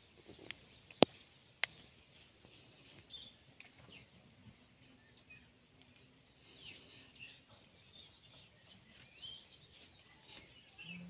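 Quiet outdoor background with scattered short bird chirps. Two sharp clicks about a second in, half a second apart, are the loudest sounds.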